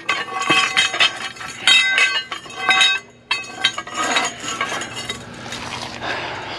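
Pieces of scrap metal clinking and clanking against each other as they are handled, with many sharp ringing strikes and a short pause about three seconds in; the strikes are louder in the first half.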